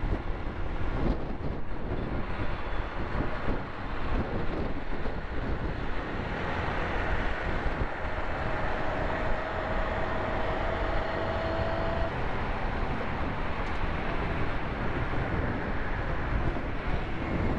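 Steady rush of wind on the microphone and road noise from a motorbike riding in traffic, with a faint thin whine for a few seconds in the middle.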